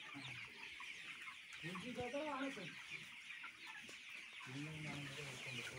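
A flock of broiler chickens clucking and cheeping, a steady chorus of many small overlapping calls.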